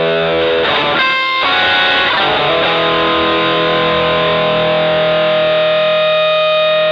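Electric guitar played through an MXR Dynacomp compressor pedal: chords are struck about a second in and again at about two and a half seconds, and the last one is left to ring out long and even.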